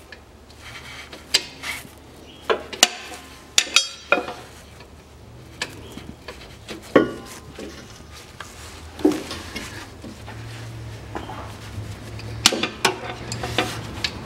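Steel hand tools clinking and knocking as a 1/2-inch square-drive wrench and extension are worked onto a transfer-case filler plug: a scatter of sharp metallic taps and clicks, a few ringing briefly. A steady low hum sits underneath, stronger in the last few seconds.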